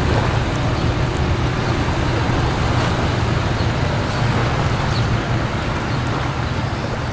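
Steady low rumble with an even hiss, slowly growing quieter.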